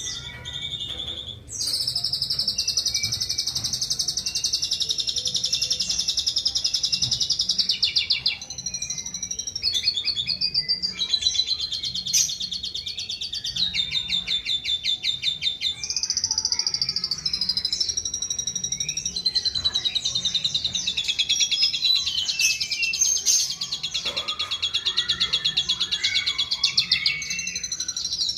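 Asian pied starling singing a long, nearly unbroken run of rapid high trills and chattering phrases that change every few seconds, mimicking the calls of other bird species.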